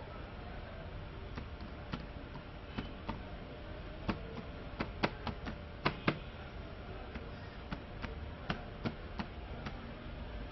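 Keys of a newly fitted laptop keyboard being pressed one at a time as it is tested, giving irregular sharp clicks that come quicker in the middle.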